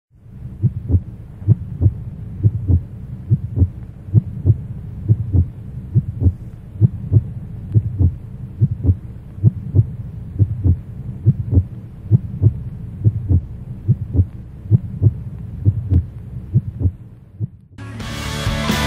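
Heartbeat sound effect: deep, even thumps about twice a second over a low hum. Loud rock music cuts in near the end.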